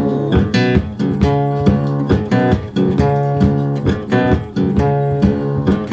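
Background music: a country song's instrumental break with guitars strummed to a steady beat and no singing.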